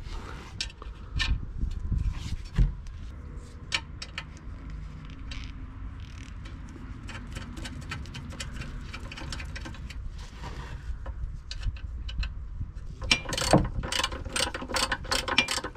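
Hand ratchet wrench clicking rapidly as it tightens the mounting bolts of an RV macerator pump, starting near the end. Before that, scattered small clicks and taps of bolts and washers being handled and threaded in by hand.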